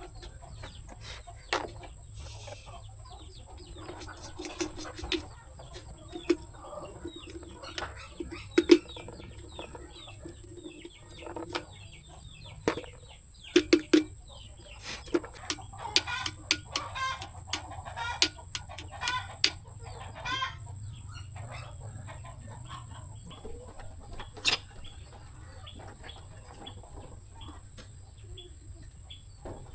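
Chickens clucking, mixed with scattered sharp clicks and knocks, under a faint steady high whine.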